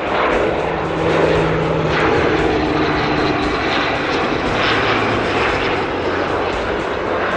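Aircraft engine noise, loud and steady, as an airplane runs or passes close by, with a faint steady drone in the first few seconds.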